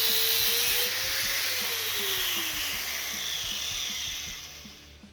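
Electric angle grinder grinding metal, then lifted off and switched off; its whine falls as the disc spins down and the hiss fades away near the end.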